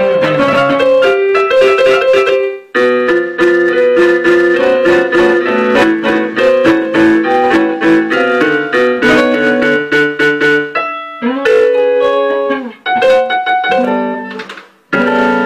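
Electric keyboard playing instrumental music, many notes ringing over one another, with a few brief breaks in the playing.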